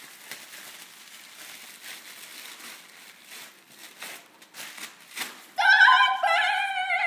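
Faint rustling of paper, then about five and a half seconds in a child blows a toy horn: a loud, wavering high note that steps down in pitch and slides lower as it ends.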